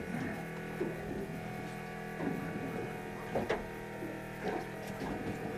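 Steady mechanical hum with a few faint knocks.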